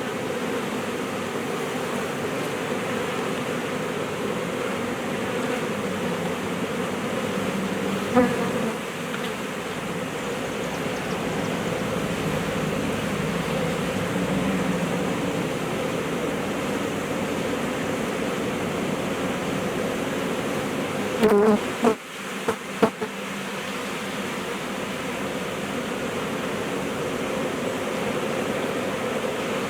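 A large swarm of honeybees buzzing steadily, a dense hum of many wings. A single sharp knock comes about eight seconds in, and a few more knocks come in quick succession about two-thirds of the way through.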